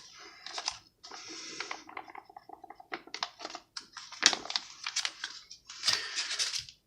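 Crinkling and rustling of a foil MRE ration pouch being handled, with irregular small clicks and taps.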